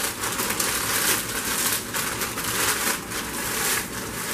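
Plastic snack bag crinkling and crackling continuously as cheese curls and dry ramen noodles are crushed together inside it by hand.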